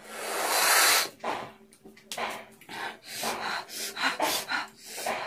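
A woman breathing hard through her mouth against the burn of an extremely hot chilli chip: one long hiss for about a second, then a run of short, quick breaths.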